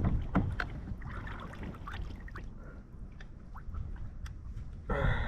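Wind rumbling on the microphone, with scattered splashes, drips and small knocks as a hooked fish is hauled out of the water into a kayak. A voice starts near the end.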